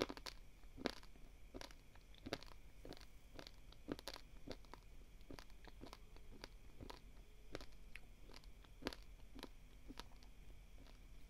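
Dry basmati rice grains crunching between the teeth as they are chewed: irregular crisp cracks, about one or two a second, the loudest near the start.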